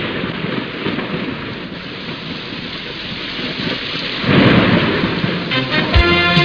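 Steady rain with a thunder rumble about four seconds in, laid over the opening title. Music begins near the end.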